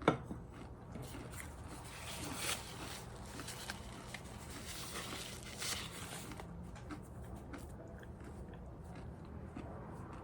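Someone biting into and chewing flaky puff pastry: a sharp tap at the start, then crackly crunching for about six seconds that dies down near the end.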